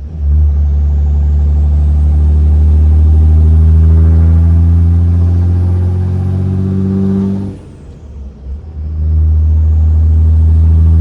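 5.9 Cummins inline-six turbodiesel, fitted with an open aftermarket intake, accelerating hard with its turbo whistle. The pitch climbs steadily, falls away for a moment about eight seconds in, then the engine comes back in, loud and steady.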